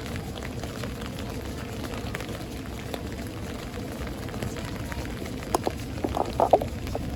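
Steady rain falling during a thunderstorm, with scattered drops ticking and a short run of louder, closer taps about six seconds in.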